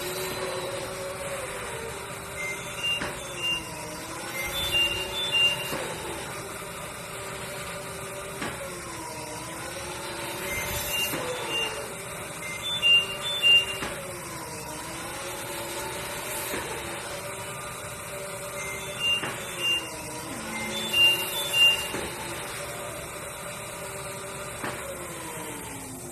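Cough assist (mechanical insufflation-exsufflation) machine's blower running through repeated breathing cycles about every eight seconds: its steady hum dips in pitch and recovers as it switches between pushing air in and pulling it out, with short high beeps and a pair of brief louder bursts in each cycle.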